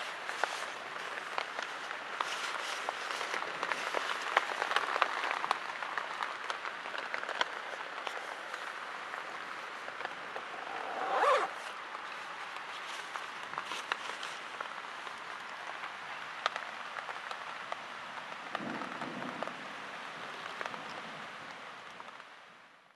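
Steady rain falling, with many separate drops ticking on nearby surfaces. About eleven seconds in there is a brief louder swell, and the sound fades out at the end.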